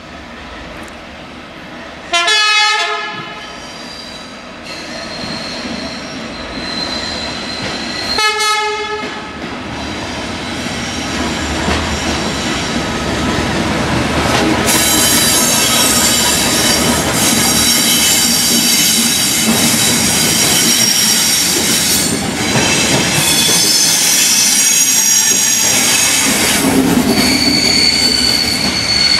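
Train horn sounds two short blasts about six seconds apart as a train approaches. The train then passes close by, loud and sustained, with high-pitched wheel squeal from the rails.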